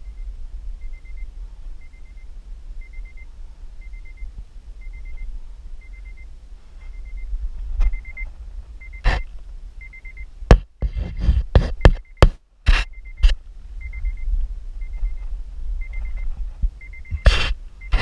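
Honda Civic's warning chime beeping steadily about twice a second with the driver's door open, over a low steady rumble. Several loud knocks and bumps come in the middle, and one more near the end.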